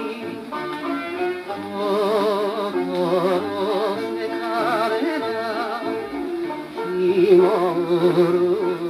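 Japanese popular song (kayōkyoku) played from a 78 rpm shellac record on a turntable. The melody line wavers with a strong vibrato.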